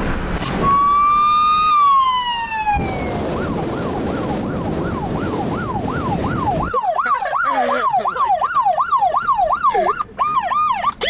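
Electronic police siren: a wail that winds down, then a fast up-and-down yelp at about three cycles a second, growing louder about two-thirds in and changing to a quicker pattern near the end. Car and road noise runs underneath until it drops away about two-thirds in.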